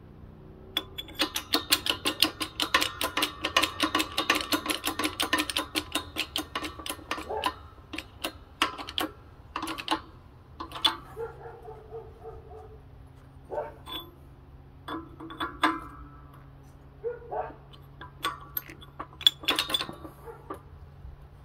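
Rapid metallic tapping as a bearing is driven into a scooter transmission case: a fast, even run of about five strikes a second for some six seconds, then slower, irregular taps and short clusters. This is the bearing being tapped in because it did not drop into the heated case on its own.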